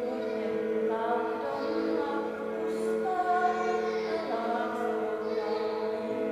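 A woman singing a slow song while bowing a jouhikko, the Finnish horsehair-strung bowed lyre. Its drone holds a steady low tone beneath the voice and melody.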